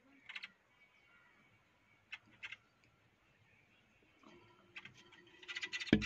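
Hoopoe giving short, harsh rasping calls in separate bursts: one soon after the start, two about two seconds in, then a quick run of them near the end. A loud low thump, the loudest sound, comes just before the end.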